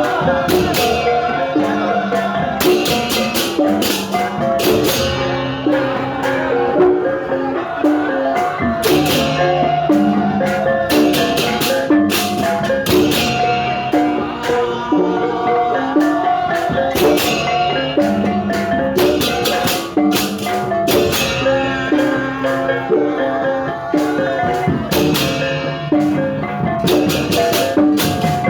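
Music of tuned percussion and drums, a repeating pattern of struck pitched notes with bright clashing hits recurring every second or two.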